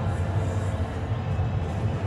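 Music playing over a cricket stadium's public-address system, with general crowd noise beneath it; the sound is heaviest in the bass.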